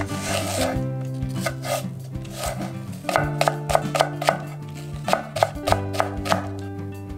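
Chef's knife slicing a Korean green onion into thin rounds on a wooden cutting board: sharp taps of the blade on the board, scattered at first, then quick runs of strokes from about halfway through, over background music.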